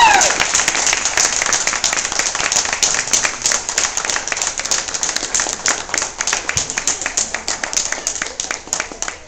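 A small audience applauding, many hands clapping, the applause slowly thinning out toward the end.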